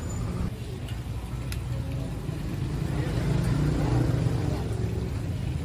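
Low, steady mechanical rumble, swelling to its loudest about three to four seconds in and then easing.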